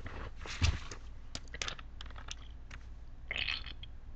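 Close-up handling noise: scattered clicks and a dull thump about half a second in, then a short hiss near the end.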